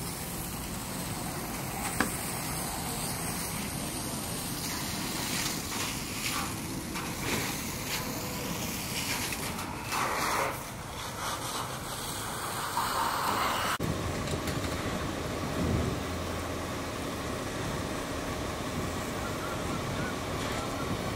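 Steady rushing noise of fire hose streams spraying water, with fire apparatus running underneath. There is one sharp knock about two seconds in, and the sound changes abruptly about fourteen seconds in.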